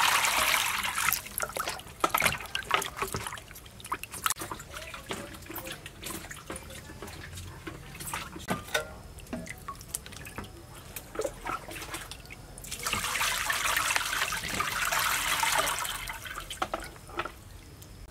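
Running water pouring over raw beef in a plastic basket, loud for about the first second and a half and again from about 13 to 16 seconds. Between and after the pours come irregular splashes and drips as the wet meat is rinsed and turned by hand.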